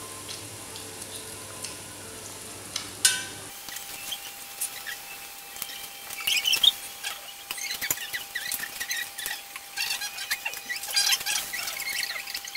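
People eating cooked sea snails: squeaky sucking and slurping as the meat is drawn from the shells, with light clicks of shells and utensils.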